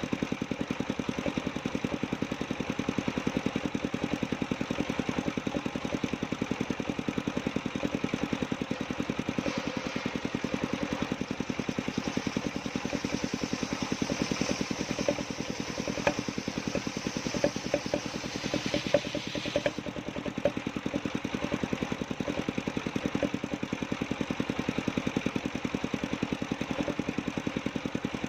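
The engine of a portable circular sawmill runs steadily with a fast, even pulse. From about ten seconds in to about twenty seconds, a higher hiss and a few sharp ticks join it as the blade works through coconut-palm wood.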